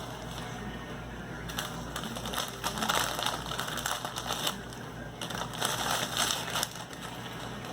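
Plastic snack packaging crinkling and crackling in irregular spurts as it is handled.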